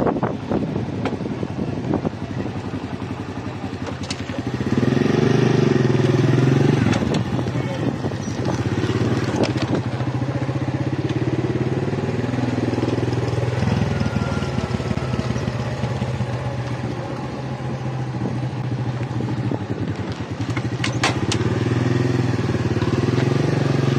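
Motorcycle engine running while riding, louder about four seconds in, then its pitch stepping up and down with the throttle.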